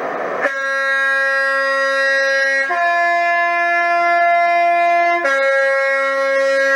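Class 43 HST two-tone horn sound effect on the model train: a long low note, then a higher note about two seconds later, then the low note again, each held steady for about two and a half seconds.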